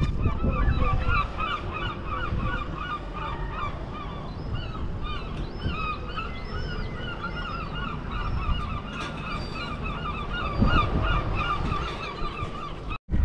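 A flock of birds giving repeated short honking calls, many voices overlapping, over a low rumble; the sound cuts off abruptly near the end.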